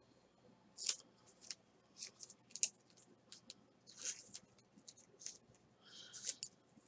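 Trading cards slid and flipped through by hand: faint, short scratchy swishes of card against card at irregular intervals, the loudest about a second in.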